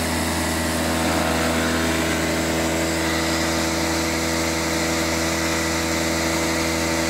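Walk-behind lawn mower's small single-cylinder engine running at a steady speed with its spark plug disconnected: it keeps firing without spark, which the owner suspects is glowing carbon deposits igniting the fuel mix.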